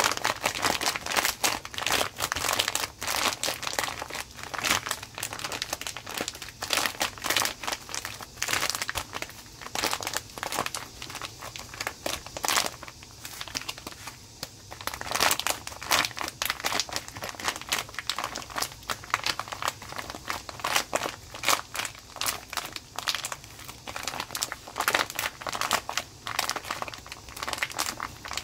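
Plastic bag of fresh jjolmyeon noodles crinkling as hands squeeze and knead it to loosen the clumped noodles inside. Irregular crinkling, with a brief lull about halfway through.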